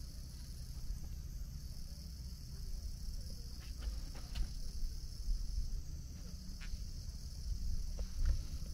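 Steady high-pitched chorus of summer insects droning without a break, over a low rumble, with a few faint clicks in the middle and near the end.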